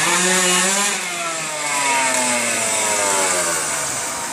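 Suzuki RM 125 single-cylinder two-stroke motocross engine running loud, its high buzzing note falling steadily over about three seconds as the revs drop.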